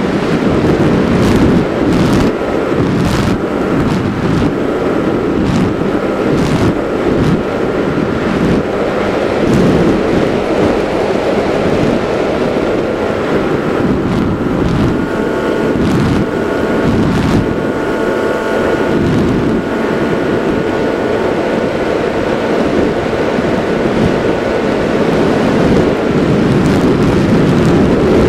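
Airflow rushing and buffeting over the onboard camera microphone of an RC flying wing in fast, low flight, with the thin steady whine of its motor and propeller that grows stronger about halfway through.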